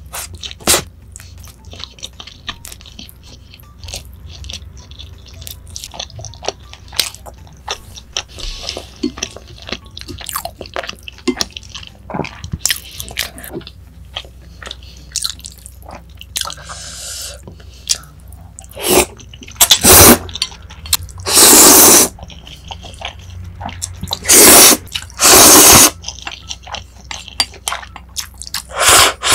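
Close-miked eating: soft, wet chewing of a cheeseburger, with many small clicks and squishes. In the second half come several loud slurps of Buldak spicy stir-fried noodles, each lasting about a second.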